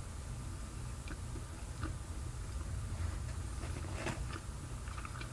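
Faint chewing of pizza with a crust between chewy and crunchy: small irregular mouth clicks over a low steady hum.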